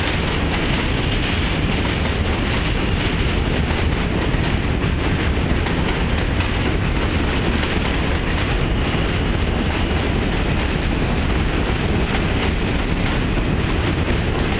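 Subway train running across the steel Manhattan Bridge: a loud, steady rumble with no break.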